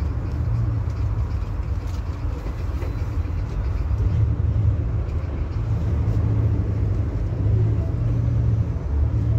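PAZ-320302 bus engine idling, heard from inside the passenger cabin as a steady low rumble.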